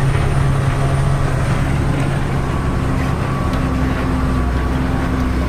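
Tata 3118 truck's diesel engine running, heard from inside the cab as the truck drives along a rough dirt road; the steady drone drops to a lower pitch about three seconds in.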